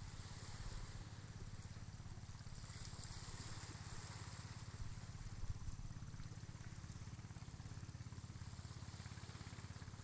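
Small, gentle waves washing onto a sandy beach, one wash swelling and fading about three to four seconds in, over a low steady rumble.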